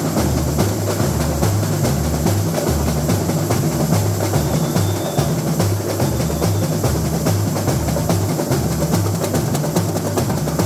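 Samba school bateria playing a samba groove: deep surdo bass drums alternating between two pitches, under dense, fast snare and small-percussion strokes.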